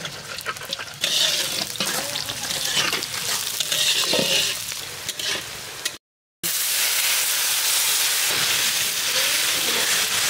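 Hot cooking oil frying in a pan: a loud sizzle with crackling pops, which cuts out for a moment about six seconds in and returns as a steady, even sizzle.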